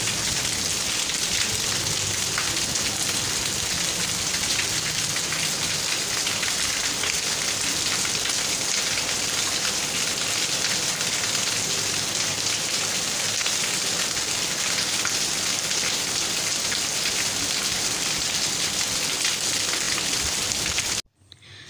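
Heavy rain falling steadily, a dense even hiss of drops on the ground and rooftops; it cuts off suddenly just before the end.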